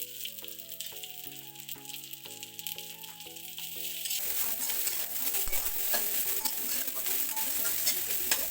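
Food sizzling and frying in a hot pan, with a steady hiss and crackle that grows louder and denser about halfway through. A simple background melody plays over the first half, then stops.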